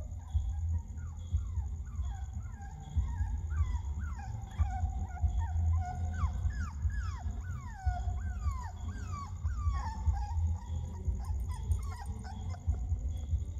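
Puppy screaming: a rapid run of short, high whines and yelps, each falling in pitch, thickest through the middle, over a steady low rumble.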